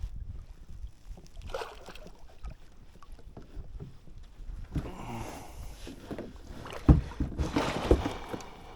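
Water splashing beside a kayak as a hooked northern pike is netted, in two spells about halfway through and near the end, with a few hard knocks against the kayak, the loudest about seven seconds in. A low rumble of wind on the microphone runs underneath.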